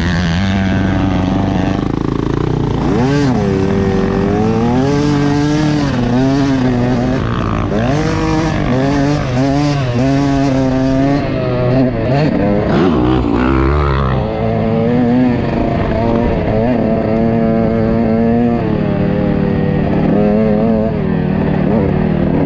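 Motocross bike engine revving hard and shifting gears on a dirt track. Its pitch climbs and drops back over and over as the throttle opens and the gears change, starting about two seconds in.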